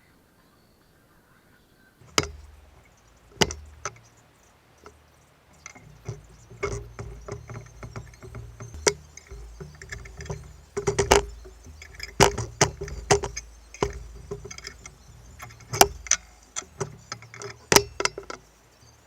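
Irregular knocks, clicks and clanks of metal parts and tools being handled while a pillar drill's head is taken apart, with a low rumble of handling underneath. It starts after about two seconds of silence.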